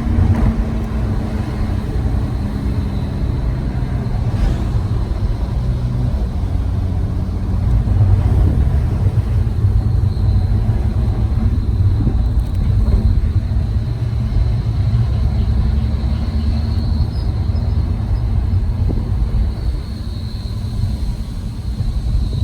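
Car running with a steady low rumble of engine and road noise. A faint high, thin tone comes in about halfway through and again near the end.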